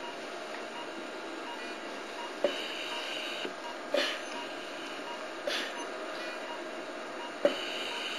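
Steady hum of hospital equipment, with a short sharp sound about every one and a half seconds, some carrying a brief higher hiss.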